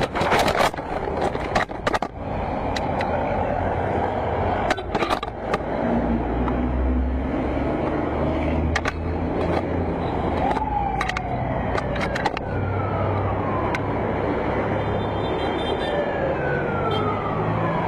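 Motorcycle crash heard through the rider's camera: a few sharp knocks and clatters in the first two seconds, then steady road-traffic noise with a motor humming. Twice, a whine slowly falls in pitch as something goes by.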